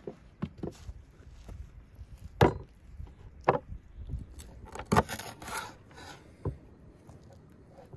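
Kitchen knife cutting a raw cow tail into pieces at the joints on a wooden cutting board: a series of irregular knocks of the blade and the tail on the board, the loudest about two and a half seconds in.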